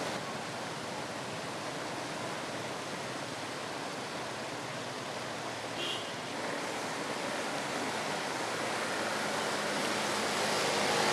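Traffic ploughing through floodwater on a street: a steady rush of splashing water with a brief high tone about six seconds in, and a vehicle engine growing louder near the end.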